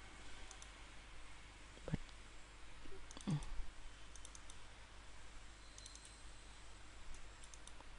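Faint computer mouse clicks, a few scattered clicks spread over several seconds.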